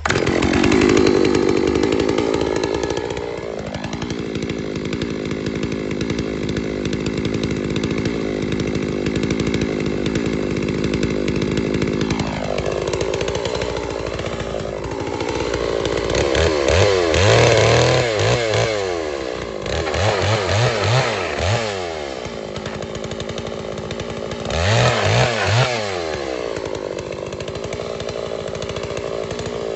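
Holzfforma G660, a 92 cc two-stroke chainsaw, running from a fresh start: engine speed settles after a few seconds, then repeatedly drops and climbs again as the chain cuts through sawmill scraps.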